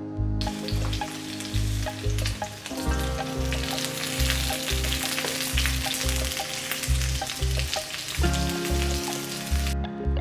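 Food sizzling and crackling as it fries in hot oil in a pan. The sizzle starts suddenly about half a second in and cuts off suddenly near the end.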